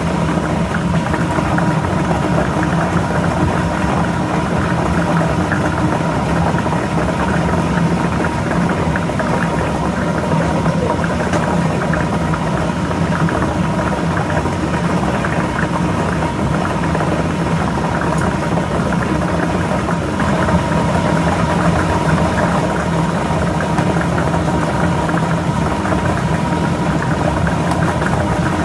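Lottery ball machine running: the blower motor hums steadily while the balls rattle and clatter continuously as they tumble inside the drum.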